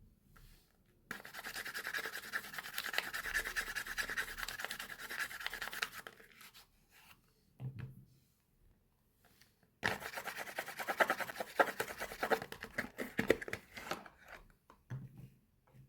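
Dense, fine rubbing and scratching from handling a soap bar and its packaging during unpacking. It comes in two stretches of several seconds each, with a couple of soft low thumps between.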